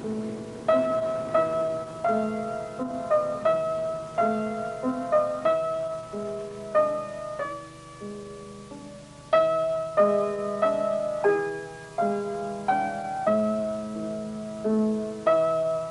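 Slow piano music: single struck notes and chords that ring and fade, one or two a second, thinning out about seven seconds in and picking up again with a strong note at about nine seconds.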